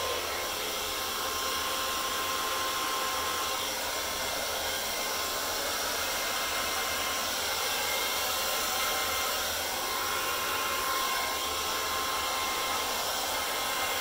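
Handheld hair dryer running steadily on high, blowing air across wet acrylic paint. A faint high whine comes and goes over the rush of air.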